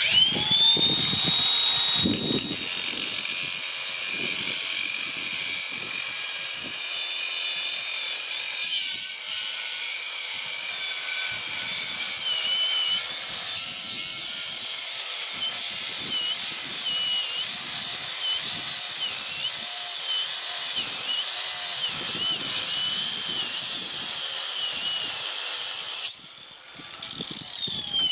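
Electric diamond grinder spinning up to a high whine and cutting into tiger's eye stone, its pitch dipping and wavering as the wheel bites into the stone. Near the end it is switched off and the whine falls away as it spins down.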